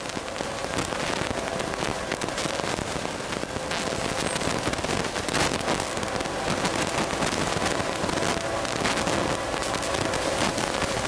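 Dense crackling hiss full of fine clicks, with the faint held chord of a distant freight locomotive's horn underneath it, growing plainer near the end as the train approaches.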